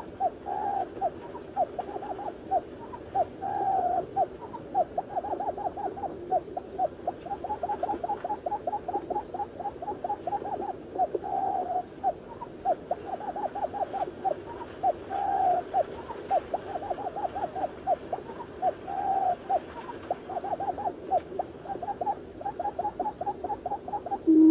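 Garden quail (buttonquail) calling as a lure for trapping: a rapid, continuous string of short, low, falling notes, several a second, broken every few seconds by a longer drawn note.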